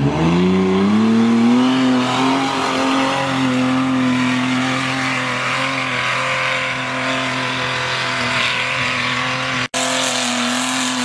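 Toyota Land Cruiser 100-series engine revved hard under load on a steep hill climb: the pitch rises over the first second or so, then holds at high revs. Tyres spinning on loose rock hiss and scrabble underneath.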